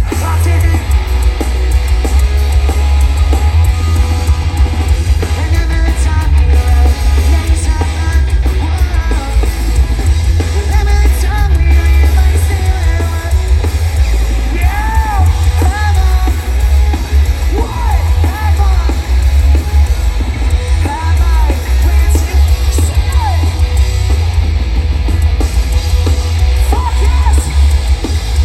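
Live pop-punk band playing loud through a concert PA, recorded from the crowd: distorted guitars, bass and drums with shouted singing, the low end heavy and overloaded.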